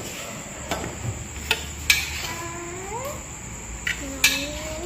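Metal spatula scraping and knocking against a wok as cooked food is scooped into a bowl, with several sharp clinks spread through. Two rising pitched calls sound faintly in the background.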